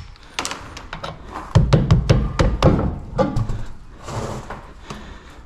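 Metal clinks and knocks of lug nuts coming off and a car wheel being worked off its hub. A quick run of sharp knocks is loudest in the middle, then tapers off.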